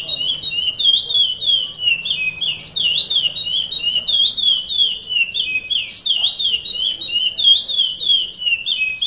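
A curió (chestnut-bellied seed finch) singing the Paracambi 'rompe nuvem' song: an unbroken run of quick, clear notes that slide up and down in pitch, several to the second.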